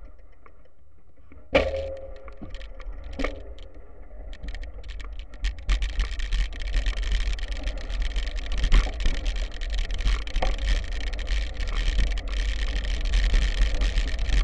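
B'Twin Triban 100 bike ridden on a loose gravel track: tyres crunching over stones and the bike and camera mount rattling, over a low rumble. It starts quiet, with two sharp knocks that ring briefly, then the crackling rattle sets in and runs on steadily from about six seconds in.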